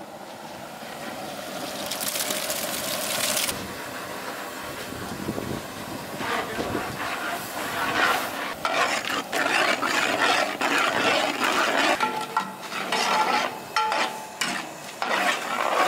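Chopped tomatoes sizzling as they go into onions frying in hot butter in a large pot, followed by a long steel ladle stirring, with many scrapes and knocks against the pot.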